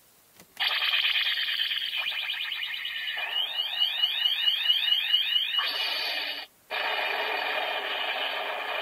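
CSM Kamen Rider 1 Typhoon henshin belt playing one of its finishing-move sound effects through its small built-in speaker. A click, then an electronic effect with a run of quick rising sweeps, about four a second, a short break, and a second part that begins to fade near the end.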